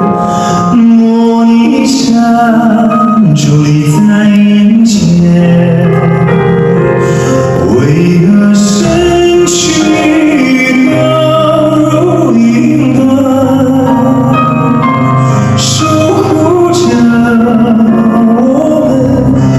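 A male singer performing live over backing music, heard through an audience recording whose sound is not very clear.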